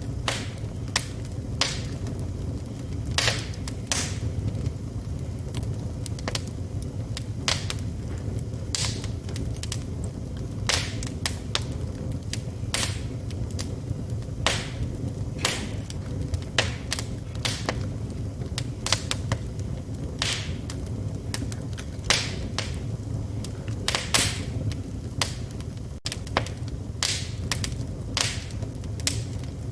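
Wood fire burning in a fireplace: crackling and popping logs, with frequent irregular sharp cracks over a steady low rumble of the flames.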